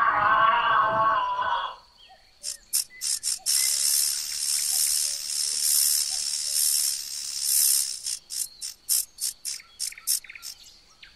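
Snake hissing: a few short hisses, then long drawn-out hisses, then a quick irregular run of short puffs near the end. Before that, for about the first two seconds, a pitched animal call with a wavering tone runs on and ends.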